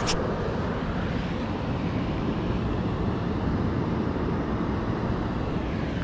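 Steady rushing of river water, an even noise with no clicks or splashes.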